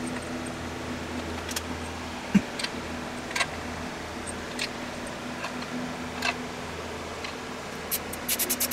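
Scattered light metal clicks and taps from parts and tools being handled on a Cummins 4BT engine block, with one sharper knock about two and a half seconds in, over a steady low hum. Near the end a fast, even run of clicks begins.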